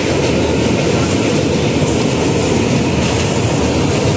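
Passenger train running across a steel truss bridge, heard from aboard: a loud, steady rumble of wheels on rails and the bridge girders.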